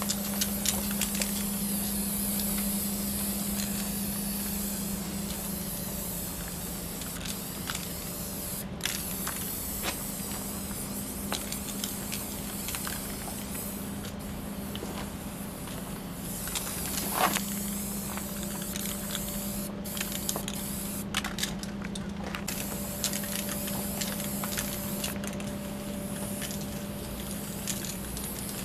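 Aerosol spray paint can hissing in spurts as paint is sprayed onto a steel freight car, with brief pauses and scattered clicks and one sharper knock partway through. A steady low hum runs underneath.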